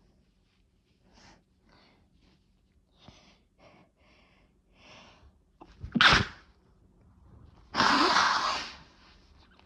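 A person sneezing twice: a few faint short breaths, then a short sharp sneeze about six seconds in and a longer sneeze about two seconds later.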